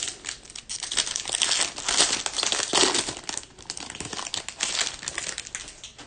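Trading-card pack wrapper being torn open and crinkled by hand, a dense crackling that fades out near the end.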